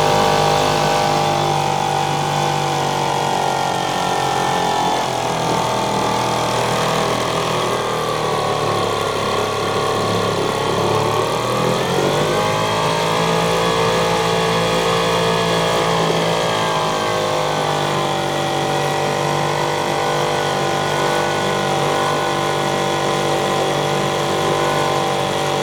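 British Seagull 40 Plus Mk 2 outboard's 64 cc single-cylinder two-stroke engine running steadily, its first run in years. Its speed sags about ten seconds in, then picks back up and holds.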